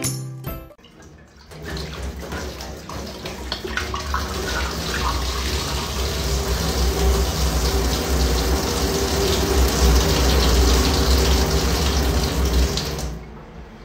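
Tap water running steadily into a stainless steel sink, streaming through a tall glass held under the faucet. It starts about a second and a half in and stops shortly before the end.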